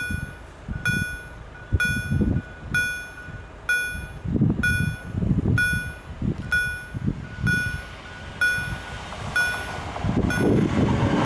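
Level-crossing warning bell striking steadily about once a second, about a dozen times, over irregular low rumbling. Near the end the passing noise of an approaching Pesa Dart electric multiple unit builds up and takes over.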